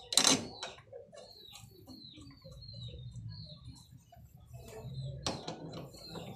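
Metal hand tools clanking as the rear shock absorber's mounting bolt is threaded in and a wrench is set on it: a loud clank just after the start and another about five seconds in. Small birds chirp repeatedly behind it.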